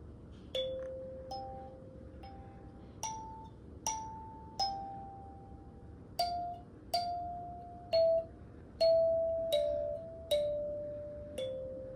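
Kalimba (thumb piano) plucked one note at a time in a slow, simple tune, about a dozen notes, each metal tine ringing out and fading before the next.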